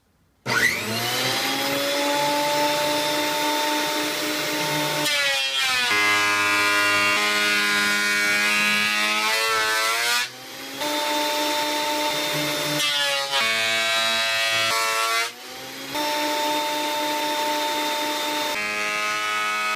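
Ryobi benchtop thickness planer switched on and spinning up about half a second in, then running steadily. Its motor pitch sinks and wavers each time a mahogany plank feeds through and is planed, several times, and settles back between passes.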